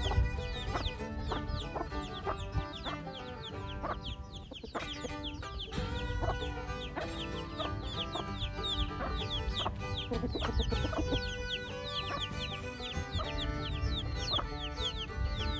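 Chickens clucking, with many short high falling chirps, over background music.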